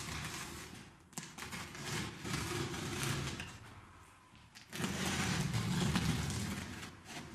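Utility knife slicing through the tape on a cardboard parcel: scratchy cutting and scraping with the box rustling, a sharp click about a second in, and the loudest run of cutting about five seconds in.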